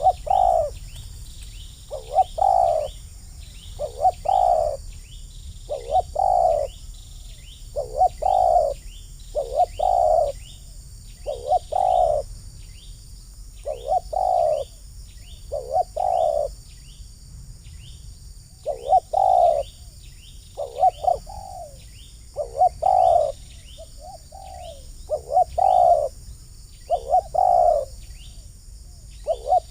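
Spotted doves cooing over and over, a low coo every second or two. Faint high chirps from small birds and a steady high insect hum sound behind them.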